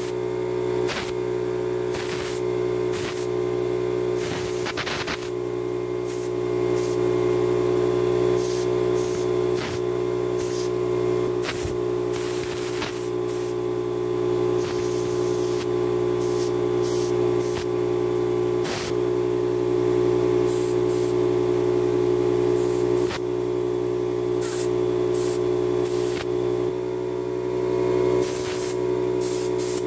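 Small air compressor running steadily with a constant hum, while a blow gun lets off many short, irregular blasts of compressed air, a few held longer, blowing dust out of worm-eaten wood.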